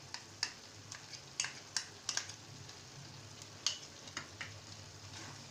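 A spoon tapping against a metal kadai in scattered sharp knocks as dollops of desi ghee go into carrot halwa, over a faint sizzle from the cooking pan.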